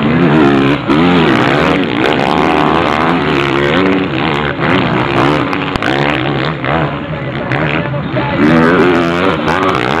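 Motocross bikes revving hard as they climb a dirt hill, engine pitch rising and dropping again and again as riders work the throttle and shift gears.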